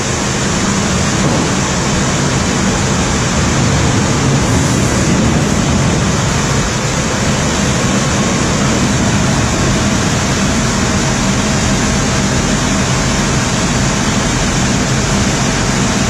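Sawmill machinery running: a steady, loud mechanical din with a low hum underneath.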